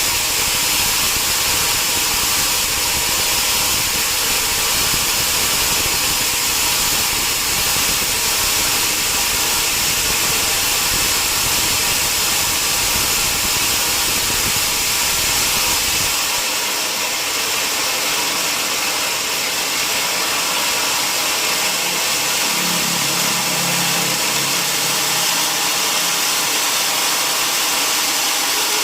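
Sawmill machinery running steadily: a loud, even hiss with a low rumble underneath that drops away about halfway through.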